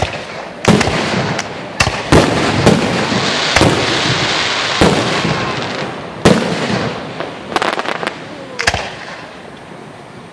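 Aerial firework shells bursting overhead: about ten sharp bangs one after another, each trailing off. There is a spell of crackle in the middle, and the bangs thin out and quieten near the end.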